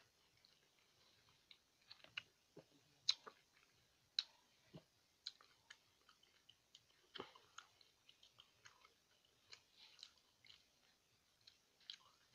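A person quietly chewing a mouthful of rice, with scattered soft mouth clicks at irregular intervals, the sharpest about three and four seconds in.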